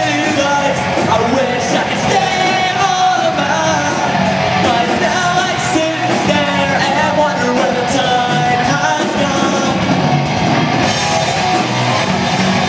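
Live rock band playing a song: electric guitars and a drum kit with a singer's voice over them.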